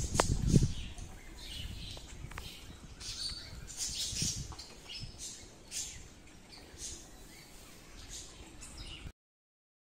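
Small birds chirping: short high calls at an irregular pace, one or two a second, over a faint outdoor background. A low rumble on the microphone is loudest in the first second. All sound cuts off about nine seconds in.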